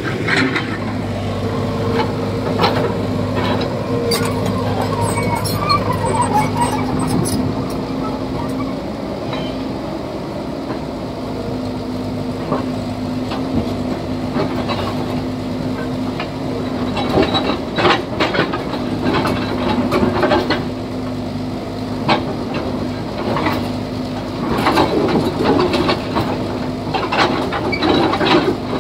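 Excavator's diesel engine running steadily while it digs, with scattered sharp knocks and clatters of the bucket striking rock and soil, bunched about two-thirds of the way in and near the end.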